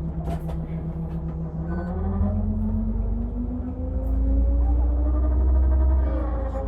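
Volvo engine with a heavy low rumble, pulling harder. Its pitch holds steady, then rises smoothly from a couple of seconds in, getting louder. Near the end the pitch breaks off briefly and picks up again, like a gear change.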